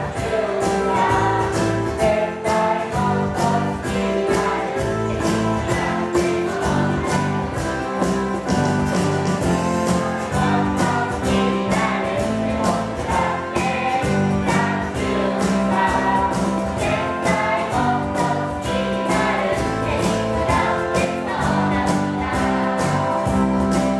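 A crowd of children and adults singing a Japanese camp song together over instrumental accompaniment, with hand clapping on a steady beat about twice a second.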